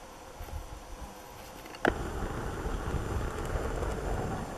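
Wind noise buffeting the microphone outdoors, faint at first. A sharp click comes about two seconds in, and after it the wind noise is steadily louder and gusting.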